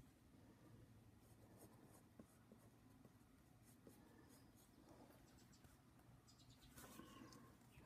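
Faint scratching of a fine-tip pen drawing on paper, in short strokes, with a louder rub of hand and paper about seven seconds in.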